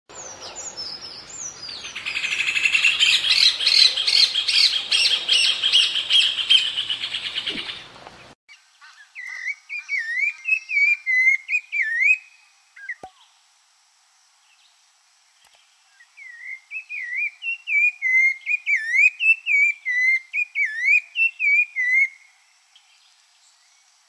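A rufous hornero (joão-de-barro) pair calling in a loud, fast series of notes for about eight seconds. It cuts off abruptly. Then a rufous-bellied thrush (sabiá-laranjeira) sings clear whistled phrases in two bouts with a pause of a few seconds between them.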